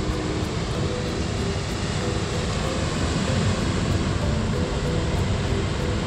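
Loud, steady rushing of water, an unbroken roar with no distinct events.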